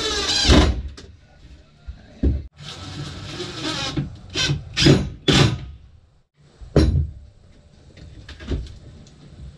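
Cordless drill driving screws into steel hinges on a plywood bed platform, in several short bursts. The first, longer burst falls in pitch as the motor winds down.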